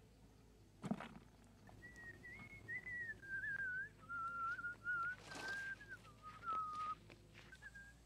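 A whistled tune in short wavering phrases, drifting slowly down in pitch. A sharp click comes about a second in, and a brief rustle about halfway.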